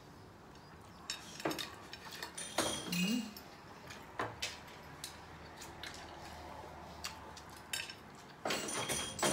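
Light clicks and taps on a plate as food is picked up by hand and eaten, with a louder, busier stretch of sound about a second before the end.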